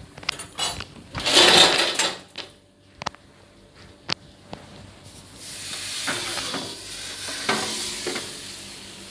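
Kitchen handling noise of pans and utensils, a few knocks and a short clatter, then about five seconds in a steady sizzle of hot frying oil begins and carries on.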